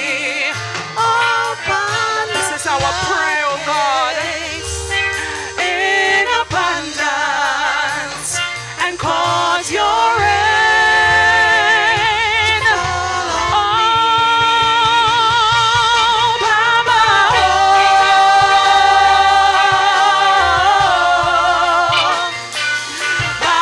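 Gospel worship music: a singer holds long, wavering notes without clear words over instrumental accompaniment with low bass notes.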